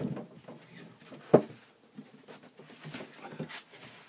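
OSB board pieces being handled: one sharp wooden knock about a second in, then a few lighter knocks and rustling.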